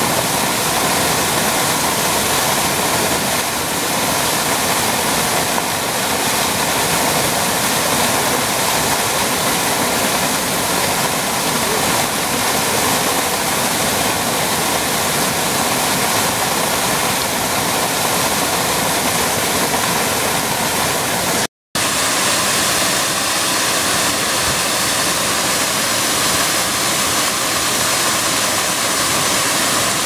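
Triberg waterfall's cascade pouring over rocks: a loud, steady rush of falling water. About two-thirds of the way through the sound drops out for a split second, then resumes with a slightly different tone.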